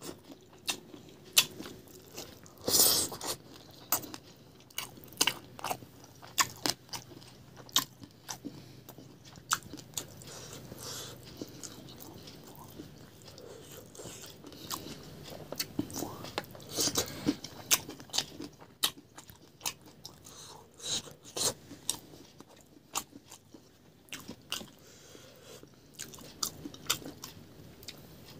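A person chewing food with loud, irregular crunches and wet mouth clicks and smacks throughout, with a denser crunching burst about three seconds in.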